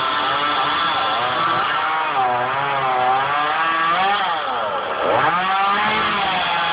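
Chainsaw engine running, its pitch rising and falling again and again as the throttle is worked, with a deep dip and climb about five seconds in.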